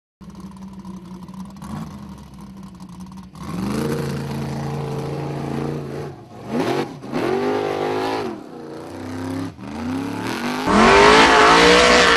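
Formula Offroad unlimited-class buggy engine, first running steadily, then revving hard in repeated rising and falling surges as the buggy climbs a steep dirt hill. The sound changes abruptly at several cuts and is loudest near the end.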